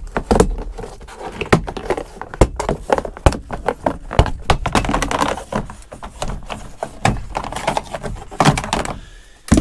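Plastic door-sill scuff plates of a Ford F-250 Super Duty being pried and pulled up by hand and with a trim removal tool: a string of sharp clicks and snaps as their retaining clips pop free, with plastic rattling between.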